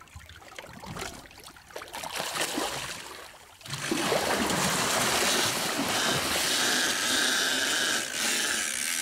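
Soft water lapping at first. About three and a half seconds in, a loud, steady rush of churning, splashing white water at the boat's stern beside the outboard motor begins suddenly.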